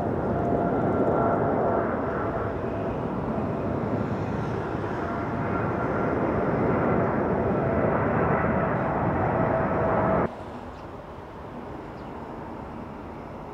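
Boeing 747-8 jet engines on landing approach, gear down: a loud, steady roar with a thin whine over it. About ten seconds in, the sound cuts off suddenly to a much quieter rumble.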